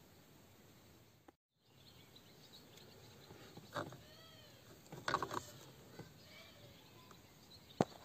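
Faint background with a few short rising-and-falling animal calls in the middle. Near the end come sharp clicks as the metal-cased ignition switch boxes are handled.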